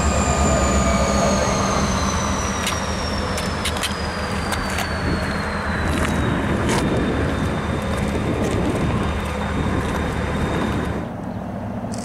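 Diesel freight locomotives running as they pull away, with a steady low engine hum, a high whine that slowly falls in pitch, and scattered sharp clicks from the wheels on the rails. The sound drops off abruptly near the end.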